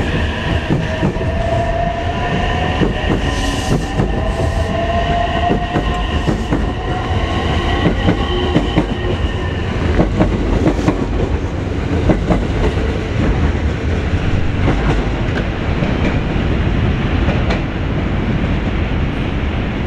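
JR West 287 series electric multiple unit moving off and picking up speed. Its traction motors whine in several tones that rise in pitch over the first eight seconds or so. Under the whine there is a steady rumble of wheels on rail, with clacking over the rail joints as the cars go by.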